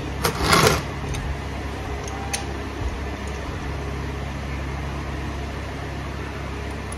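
A steady low mechanical hum, with a brief, loud clatter about half a second in and a faint click a couple of seconds later.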